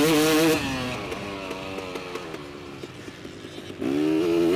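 Motocross bike engine held at high revs, then throttled off about half a second in, the revs falling away to a quieter coast with scattered clicks. Near the end the throttle opens again and the engine revs climb back up loud.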